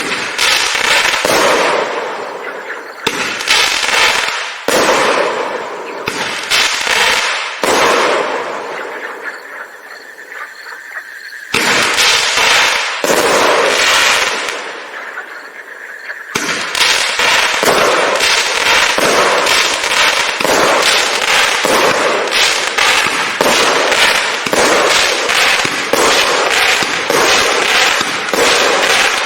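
Bright Star 'Broadcast Frequency' 27-shot firework cake firing double-stage crackling mines: each shot a bang followed by a crackling decay. The shots come a second or two apart at first, with a lull and a few louder ones, then fire in quick, continuous succession for the second half.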